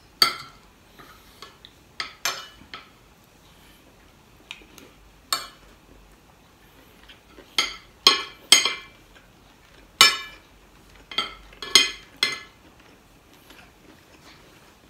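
Metal spoon and fork clinking against a ceramic plate while eating: about a dozen sharp, irregular clinks, some with a brief ring, a second or two apart, bunched more closely in the second half.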